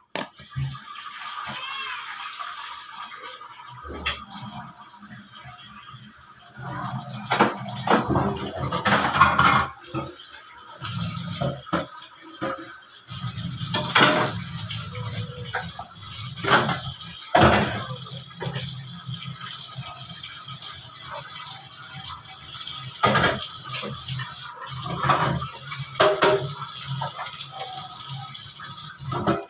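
Water boiling in a pot on a gas stove, a steady bubbling wash of sound, with sharp crinkles and tears of small plastic seasoning sachets being opened now and then.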